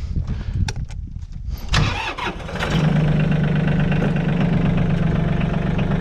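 Compact tractor engine running, uneven and with a few clicks at first, then about three seconds in it comes up to a louder, steady run.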